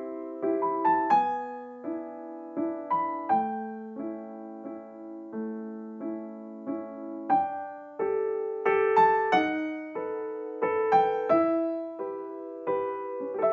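Background piano music: a slow melody of single notes and chords, each note struck and then fading away.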